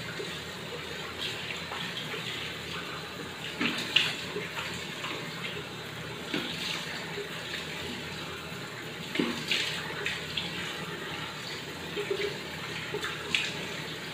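Tap water running steadily into a bathroom sink, with irregular splashes as handfuls of water are scooped up to rinse cleanser lather off a face.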